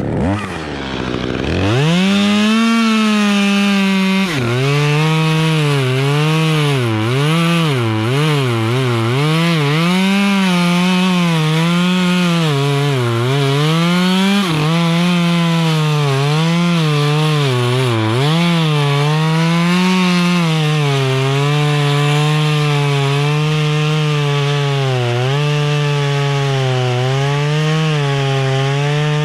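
Chainsaw revving up from idle over the first couple of seconds, then cutting through ash wood. Its engine pitch dips and recovers again and again as the chain loads up in the cut, then holds steadier in a long cut over the last third.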